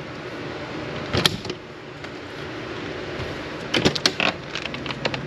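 Light clicks and knocks of door hardware being handled and fitted. A cluster of sharper clicks comes about four seconds in, over a steady low background noise.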